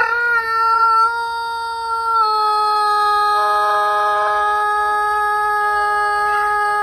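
One long held tone at a steady pitch, dipping slightly about two seconds in.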